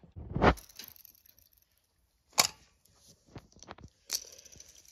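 Handling noise from a plastic Pokéball pen disc launcher: a thump about half a second in, then a few sharp plastic clicks and taps.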